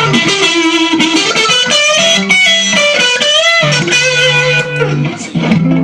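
Electric guitar played through a Masa Transatlantic TA-15 tube amp and a 4x10 speaker cabinet. It plays single-note lead phrases with string bends and vibrato, then settles on held low notes near the end.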